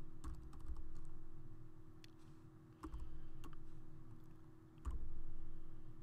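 Computer keyboard keys being typed in short, irregular runs of clicks with pauses between them, over a faint steady hum.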